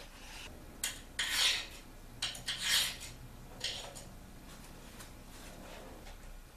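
CNC kit parts handled on a floor drop cloth: a sharp click a little under a second in, then three short bursts of rustling and clatter within the first four seconds.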